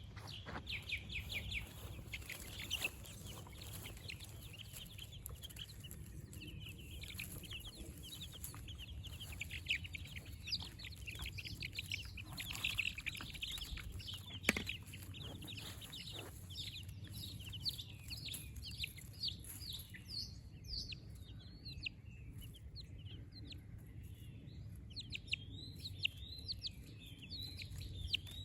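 Several young chicks, under a month old, peeping continuously in quick, high, overlapping chirps, over a faint steady low hum.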